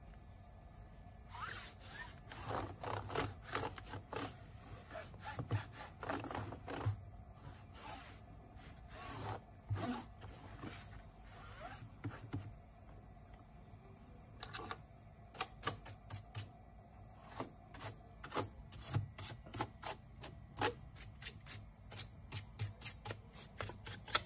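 Microfiber cloth rubbing over an HP laptop's screen and keyboard, with scattered clicks of the laptop keys. The clicks come thicker and faster in the second half.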